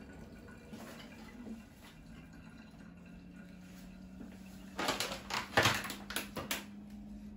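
A steady low hum, then about two seconds from the middle on, a quick run of knocks and clicks as things on a kitchen counter are handled and set down.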